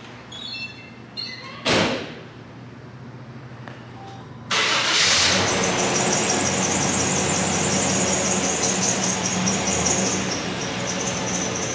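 A single thump about two seconds in, then the Chevrolet Tahoe's engine starts about four and a half seconds in and runs on at a steady idle with a high whine over it.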